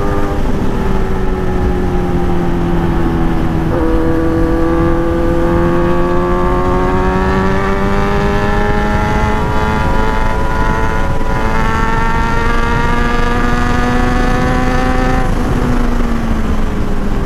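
Kawasaki Z900's inline-four engine through a full-system aftermarket exhaust, held at full throttle at high speed. Its note shifts abruptly in the first few seconds, then climbs slowly and steadily before falling away about fifteen seconds in as the throttle eases. Heavy wind rush runs underneath.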